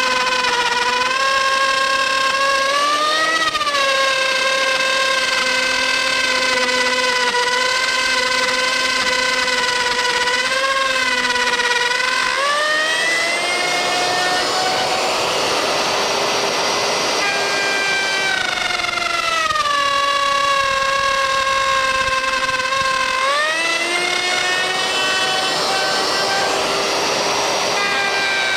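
Handheld electric router running at full speed with a high whine. Twice, about halfway and again near the end, the whine shifts and a rough cutting noise comes in as the bit follows the template through the workpiece.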